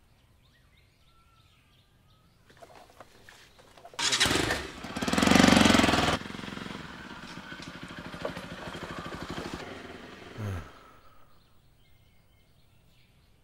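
A motorcycle engine starts about four seconds in and revs up. It then runs steadily as the bike pulls away and fades out, its pitch dropping shortly before it dies away.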